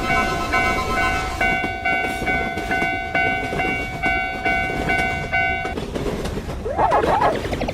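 Railroad level-crossing alarm ringing its 'kan-kan' about twice a second over the rumble of a passing train. The alarm stops about two-thirds of the way through, and a wavering, sliding tone comes in near the end.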